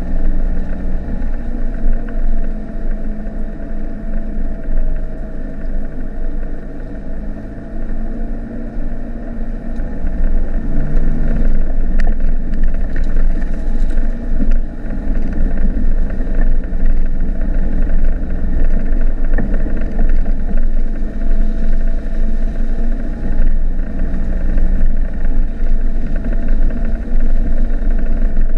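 Inside the cab of a 1995 Mitsubishi Delica's 2.8-litre turbo-diesel van driving along an unpaved lane: a steady low engine drone and road rumble. The engine eases off for a few seconds, then picks up again about ten seconds in, with a faint knock soon after.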